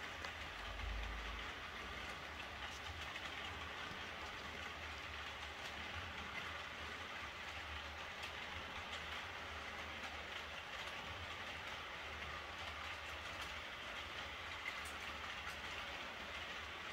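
Model train running on the track: a Piko Class 110 electric locomotive model and its coaches rolling with a steady whirring hiss and faint light clicks. A short low rumble comes about a second in.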